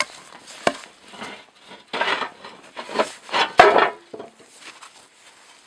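Cast-iron stove parts being handled: irregular scrapes and knocks, with two sharp metallic clicks, one about a second in and one past the middle.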